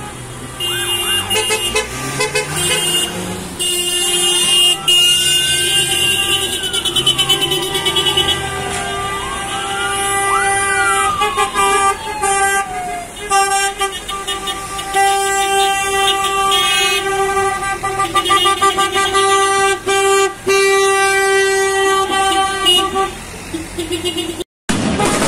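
Many vehicle horns honking and held down together, with an emergency-vehicle siren wailing up and down over them several times in the first half.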